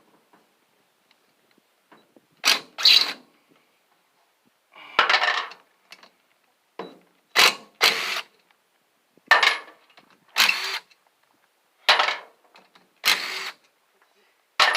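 A power tool run in about ten short bursts, often two close together, as it works the bolts out of a large electric motor's housing.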